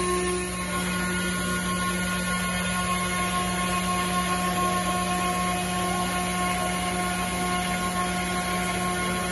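KOMO CNC router's spindle running while cutting an MDF sheet: a steady machine noise with several steady whining tones over it.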